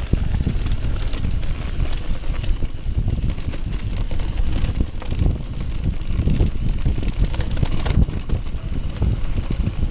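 Mountain bike descending a rough trail: tyres rumbling and the bike rattling over bumps, with wind buffeting the microphone.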